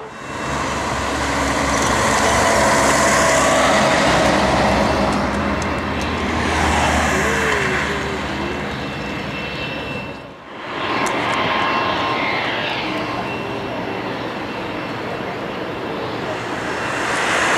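Airliner engines running loud as a plane passes close by. The noise drops away sharply about ten seconds in, then builds again.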